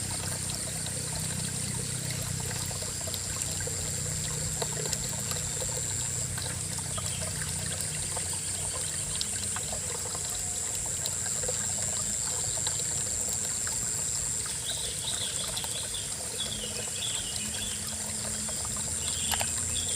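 River water flowing and trickling steadily over a stream bed, with a steady high-pitched hum above it and faint chirps near the end.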